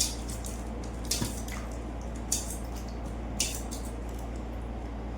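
Wet squelching and dripping of water rice (pakhala) being handled in the bowl as the eating starts, with a few sharp wet clicks over a steady low hum.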